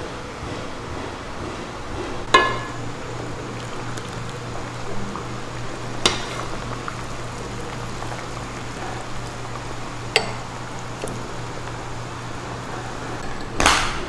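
A few sharp clinks of a ladle and chopsticks against a metal pot and ceramic bowls, about four seconds apart, the first ringing briefly. Under them is a steady low hum and hiss, and a brief louder rush of noise comes near the end.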